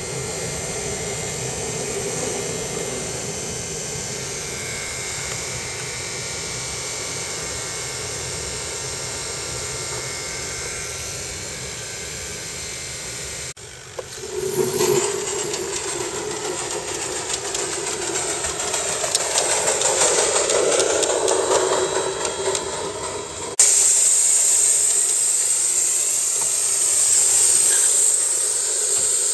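Aster live-steam gauge 1 model of a DB class 01 steam locomotive running on a test stand, hissing steam and working. The sound changes abruptly about halfway through, and again near the end to a louder, steady hiss.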